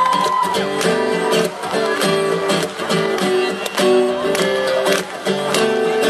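Acoustic guitar strummed in a steady rhythm, full chords ringing as a song begins.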